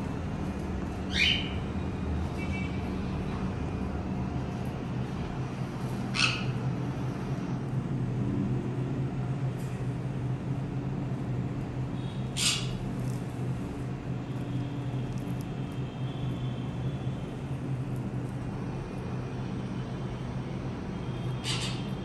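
Conures giving short, sharp screeches, four in all, spaced several seconds apart, over a steady low hum.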